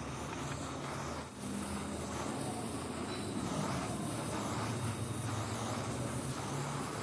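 A motor-driven workshop machine running steadily, a low hum under a broad hiss, dipping briefly about a second in.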